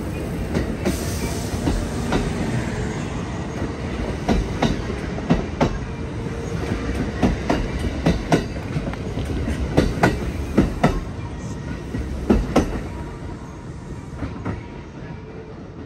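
Kintetsu 2800 series electric train running, heard from inside the front car, its wheels clacking sharply over rail joints. The clacks come most often in the middle stretch, and the running sound eases off near the end.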